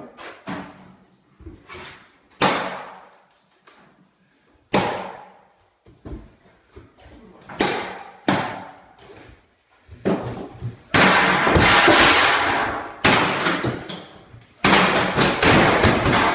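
Metal bangs and clanks with ringing tails from a wall-mounted boiler's sheet-metal casing as it is worked loose and taken off the wall. About ten seconds in this turns into a louder, denser stretch of rattling and clattering.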